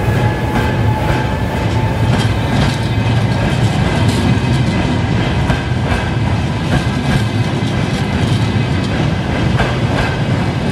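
Electric passenger train rolling slowly past at close range: a steady rumble with wheels clacking over rail joints at uneven intervals.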